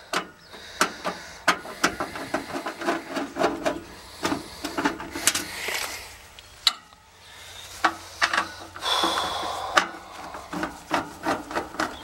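Irregular clicks, taps and scraping against the air-conditioning condenser's metal cabinet, with a longer rubbing stretch about nine seconds in. Under them a faint steady low hum: the unit running while its condenser fan stays stopped, which a failed fan capacitor turns out to cause.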